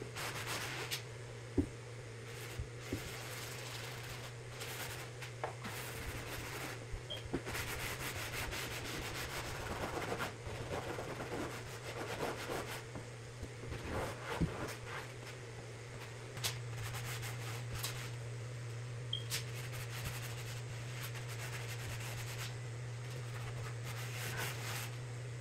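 Cloth rag rubbing and wiping stain into a plywood shelf: soft, uneven scrubbing strokes with a few light taps, over a steady low hum.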